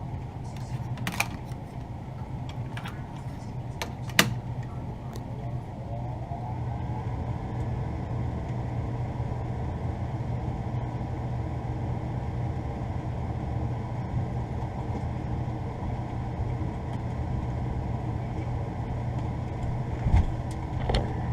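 York gas furnace starting up: a steady low hum, two sharp clicks in the first few seconds, then about six seconds in a fan motor spins up, its whine rising and settling into a steady running tone.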